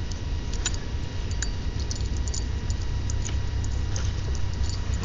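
Handling noise from a laptop's built-in microphone as it is carried: a steady low rumble with a faint electronic hum and scattered light clicks and ticks.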